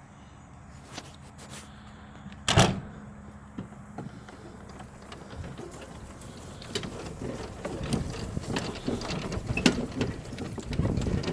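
Golf cart driving over rough ground: a faint steady motor hum, a single loud knock about two and a half seconds in, then rattling and bumping that grows busier and louder in the second half as the cart bounces.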